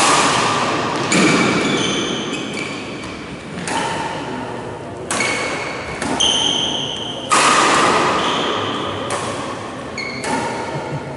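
Badminton rackets striking the shuttlecock in a doubles rally, about eight sharp hits one to two seconds apart, each with a long echo in the hall. Short high squeaks of shoes on the court floor come between the hits.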